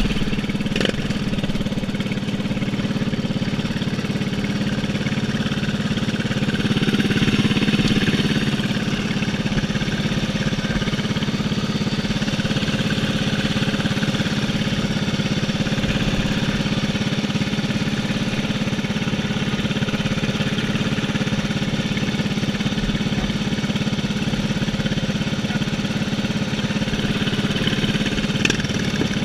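Racing lawn mower's engine running steadily, heard from the driver's seat, briefly louder about seven seconds in.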